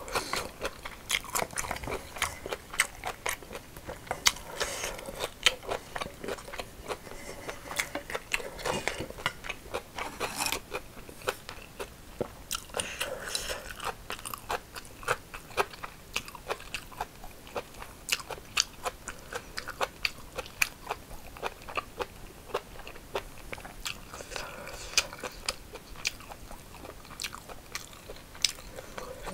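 Close-miked chewing and crunching of a mouthful of rice bibimbap with crisp cucumber slices: a steady run of short, sharp, wet clicks.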